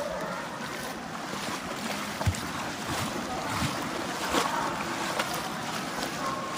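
North Fork of the Virgin River flowing and splashing in a continuous rush of water, broken by a few short, sharp sounds, the loudest a little over two seconds in.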